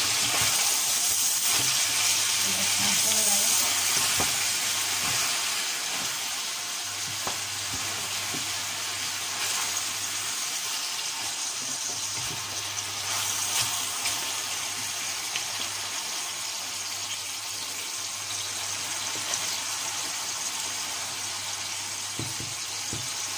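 Chicken and vegetables sizzling in a stainless steel pan as they fry, stirred now and then with a wooden spoon that knocks lightly against the pan. The sizzle is louder for the first few seconds, then settles to a steadier, slightly lower level.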